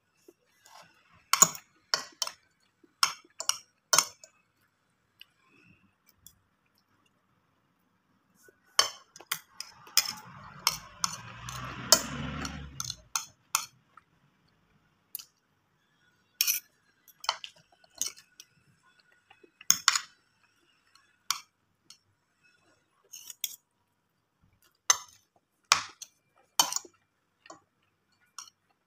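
Metal spoon and fork clinking and scraping against a plate while eating, in irregular sharp clicks. A rougher, longer noise runs for a few seconds around the middle.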